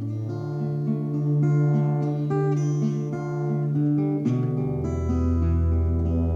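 Instrumental music of plucked acoustic guitar over held low notes; the bass note shifts twice.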